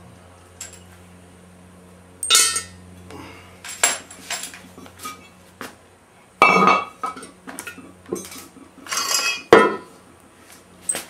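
A series of irregular metallic clanks and clinks, metal parts and tools knocking together, the louder ones ringing briefly; the loudest come about two, six and a half and nine seconds in. A faint steady low hum sits underneath.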